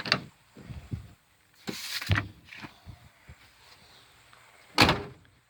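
A few scattered thumps and knocks with a short scraping burst, then one sharp, loud knock near the end.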